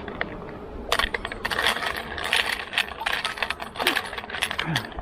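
Beehive equipment being knocked and scraped, a dense run of sharp knocks and scrapes starting about a second in, as bees are jolted loose so they let go.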